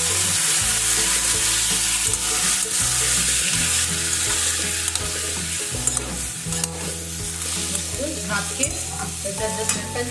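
Chopped tomatoes sizzling loudly in hot ghee in a metal kadhai, just after being tipped in. The sizzle eases off gradually, and a metal spatula stirs and scrapes against the pan, with clicks and scrapes more noticeable in the second half.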